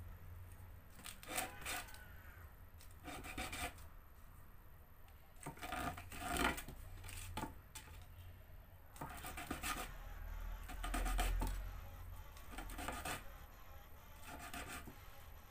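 A small plastic toothbrush-handle lure body being worked by hand against an abrasive, in short irregular bouts of rasping strokes with pauses between them.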